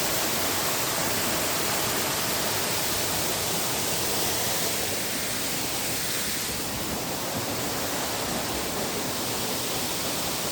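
Waterfall heard up close: falling water making a steady, even rushing noise.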